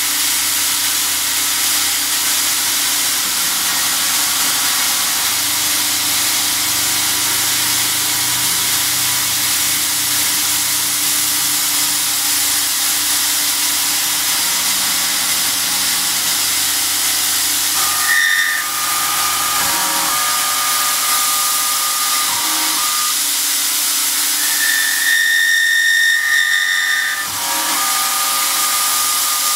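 CNC milling of a 1911 slide on a converted RF45 mill: a steady hiss from the nozzle blowing onto the end mill over the hum of the spindle and cut. About two-thirds of the way through, thin whining tones from the cut come in and shift pitch, with a higher, louder whine for a couple of seconds near the end.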